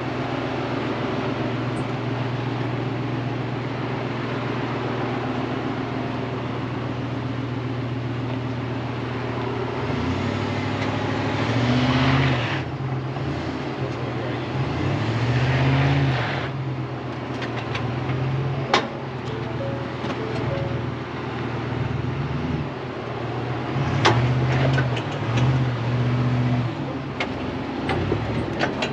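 Pickup truck engine crawling through a washed-out dirt trail: a steady low running note at first, then revving up and easing off several times as it works through the soft ruts, with tyre and gravel noise and a few sharp knocks.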